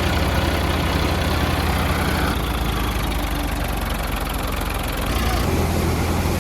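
Heavy diesel engine running steadily with a low rumble; its low note shifts about five seconds in.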